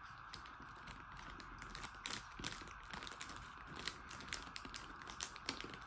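Plastic chips packet crinkling and crackling in irregular bursts as a child rummages inside it for chips.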